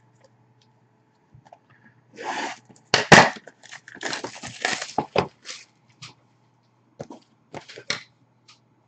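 Cellophane shrink wrap being cut and stripped off a trading card box, crinkling in several bursts, followed by a few light taps as the box is handled on the desk.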